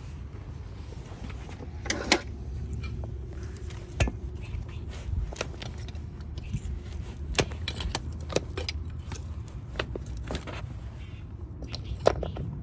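Metal farrier tools working a hoof: irregular sharp clicks and short scrapes, the loudest about two seconds in and near the end, over a steady low rumble.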